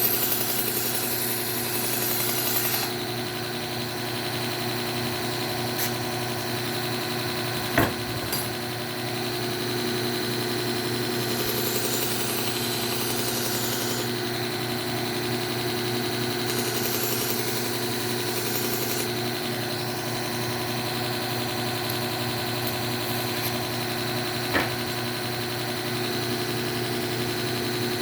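Electric belt sharpener running steadily with a leather stropping belt, as a kitchen knife is stropped on it: three stretches of added hiss as the blade is held to the moving leather. Two short sharp clicks, one about eight seconds in and one near the end.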